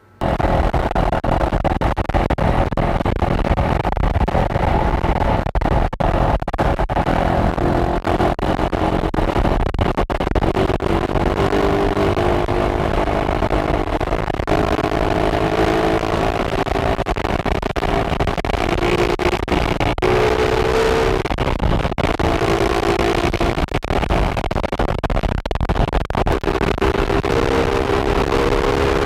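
Very loud wind noise rumbling and buffeting on an SJCAM action camera's external microphone while moving, with a vehicle engine running underneath, its pitch slowly rising and falling.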